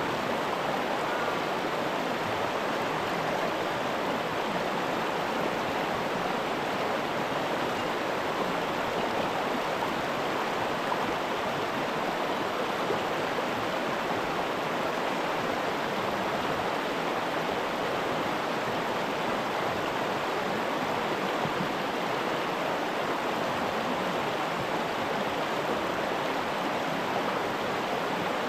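Mountain river water rushing steadily and continuously.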